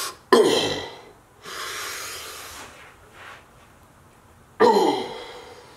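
A man's forceful vocal grunts and blowing breaths while flexing. There are two sudden loud grunts falling in pitch, one just after the start and one near the end, with a long breathy exhale between them.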